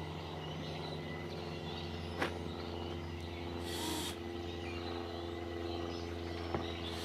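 Steady low hum of a running engine or motor, with a sharp knock about two seconds in, a short hiss near the middle, and a fainter knock near the end.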